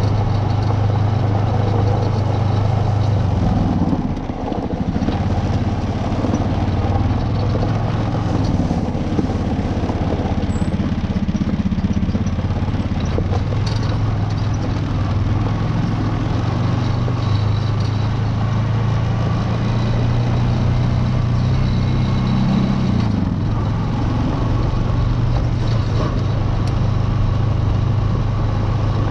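Off-road vehicle's engine running steadily at a low pitch. It dips briefly about four seconds in and shifts pitch again a few seconds before the end as the throttle changes.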